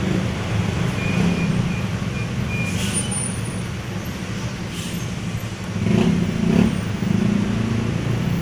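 Steady low background rumble, with a brief louder swell about six seconds in.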